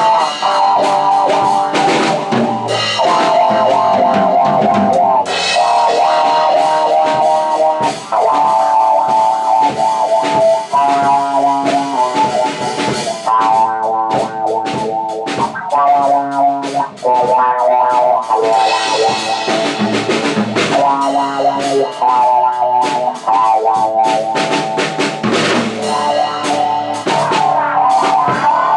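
Rock music: a drum kit and guitar playing continuously.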